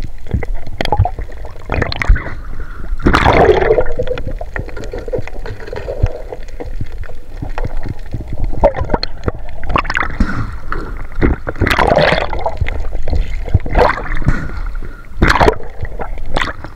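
Seawater sloshing and gurgling, with irregular splashes and surges over a steady low rumble.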